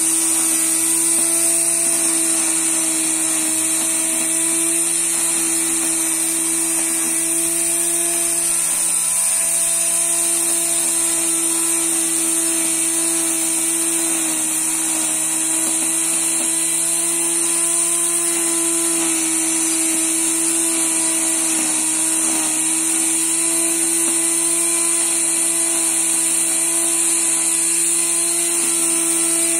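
Electric angle grinder motor of a homemade three-wheeled grass cutter running steadily with a high whine as it is pushed through dry grass, its pitch dipping slightly a couple of times.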